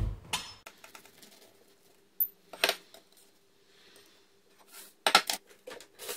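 Clinks and knocks of crockery and a knife on a kitchen worktop as a quiche is set down, cut and a slice served onto a plate: a dull thump at the start, then sharp clacks about two and a half seconds in and again about five seconds in, over a faint steady hum.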